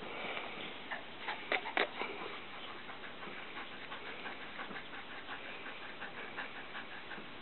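Dog panting with its mouth open close to the microphone, with a few sharp clicks about one to two seconds in.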